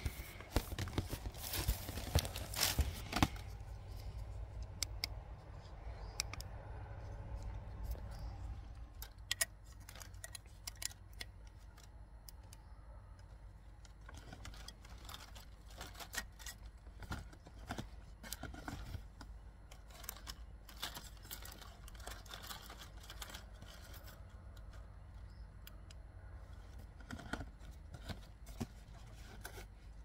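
Handling noises: light clicks, scrapes and rustles as artificial ivy, a small chain and a wire mesh basket are arranged by hand. The clicks are thickest in the first few seconds, then come in scattered bunches over a low steady hum.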